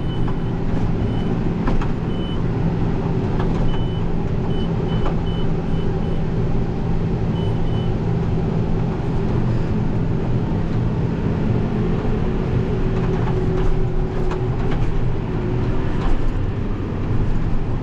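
Case IH tractor engine running steadily under load at field speed, heard from inside the cab. A string of short high beeps sounds in the first half, and there are a few faint knocks as the tractor rides over rough ground.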